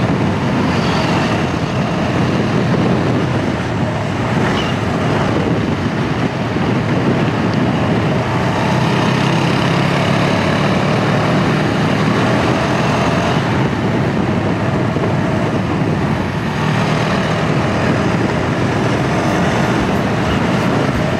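Motorcycle running steadily at road speed, with wind rushing over the helmet-mounted action camera's microphone.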